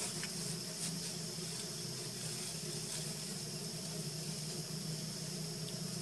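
Steady outdoor insect chorus, a continuous high buzz that holds at one pitch, over a constant low hum.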